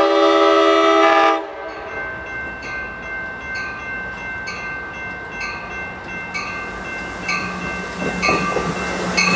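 Amtrak cab car's five-chime K5LA horn sounds one blast of about a second and a half that cuts off sharply; the uploader rates this car's horn the worst K5LA of all. A bell then dings about once a second while the approaching train's low engine hum and wheel noise build toward the end.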